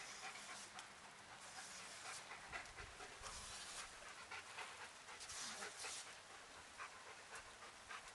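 A German Shepherd panting and snapping at the water jet of a small lawn sprinkler, with splashing over the faint, steady hiss of spraying water.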